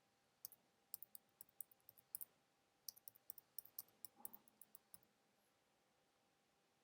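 Faint, quick, irregular clicking of a computer mouse or keyboard being worked, about two dozen clicks over four seconds, stopping about five seconds in.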